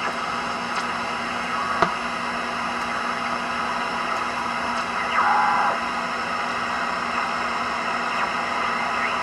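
Steady band noise hissing from a homebuilt BITX HF receiver's speaker as its single tuning knob is turned across a quiet band with almost no signals. A sharp click comes about two seconds in, and a short snatch of a tone-like signal is heard about five seconds in.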